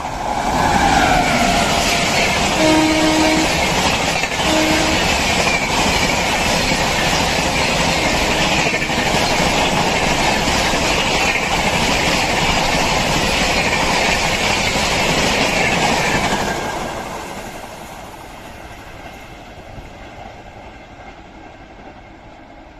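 Electric-hauled Indian express train running through a station at high speed: a loud, steady rush of wheels and coaches with rail clatter for about sixteen seconds, then fading as it draws away. Two short horn notes sound about three and four and a half seconds in.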